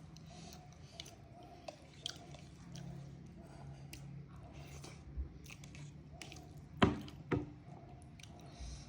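A person chewing a mouthful of rice and mutton curry, with wet mouth and lip smacks and small clicks, and two sharper clicks close together about seven seconds in.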